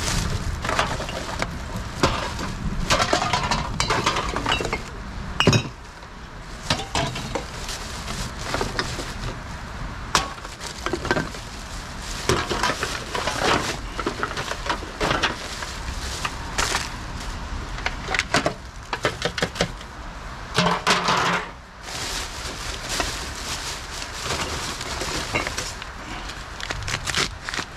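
Rummaging in black plastic rubbish bags: plastic rustling, with empty aluminium cans and bottles clinking and clattering against each other as they are sorted into a bin of cans, in a busy run of sharp knocks.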